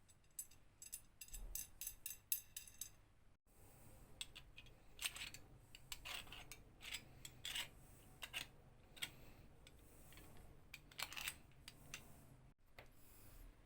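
Irregular small metallic clicks and clinks of the hand drill's metal parts being handled, with the sound cutting off abruptly twice.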